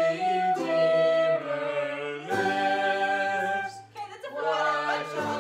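Several voices singing long held notes together in an amateur family ensemble, accompanied by acoustic guitar, flute and trumpet, with a short break between phrases about four seconds in.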